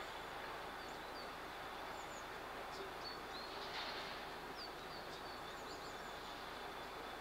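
Small birds chirping now and then, in short high chirps, over a steady background noise.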